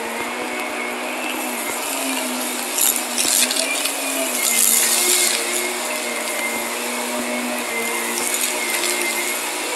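Shark upright vacuum cleaner running steadily over carpet, a continuous motor hum with a high whine. Twice, about three seconds in and again around the middle, brief crackly hisses rise over it as fine dirt is sucked up.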